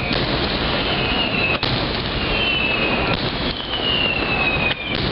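Fireworks display: a dense, continuous barrage of aerial shells bursting, with several high whistles, each about a second long and falling slightly in pitch.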